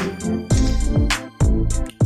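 Background music with a steady beat: low kick-drum hits that drop in pitch, and sharp percussion hits over sustained instrument notes.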